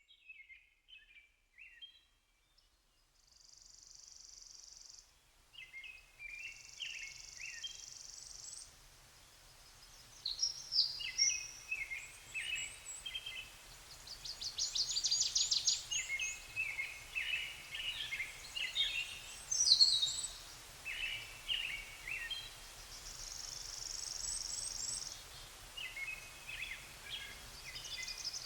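Songbirds singing in short repeated chirping phrases, with high buzzy trills between them, over a faint steady low rumble.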